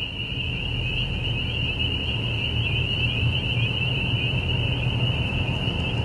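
A dense, shrill chorus of calls held at one high pitch with a fast shimmer, which the speaker calls cicadas, over the low rumble of the car driving along.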